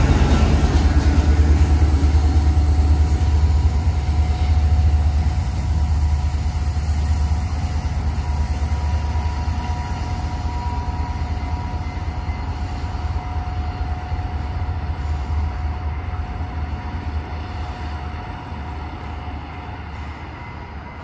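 Diesel rumble of a departing FrontRunner commuter train's MP36PH-3C locomotive, with its EMD 16-645 two-stroke prime mover, pushing from the rear. It fades steadily as the train pulls away.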